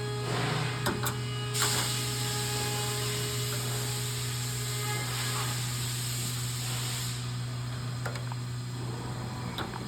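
Small clicks and a hissing rustle as cut lamp wires are twisted out of a tanning-bed ballast's push-in terminals, over a steady low hum. The rustle starts about a second and a half in and stops about seven seconds in.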